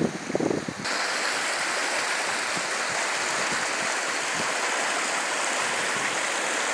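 Shallow, fast-flowing river, the Bystrzyca Dusznicka, rushing and splashing over stones, a steady even hiss. For the first second or so, a loud irregular rumble of wind on the microphone covers it.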